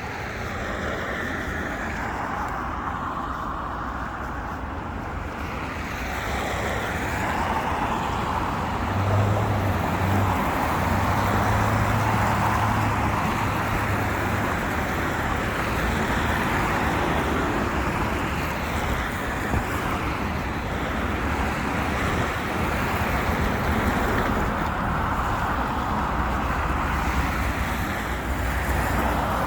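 Road traffic on a city avenue, cars passing in a steady wash of tyre and engine noise that grows louder about six seconds in. A deeper engine drone stands out for several seconds in the middle.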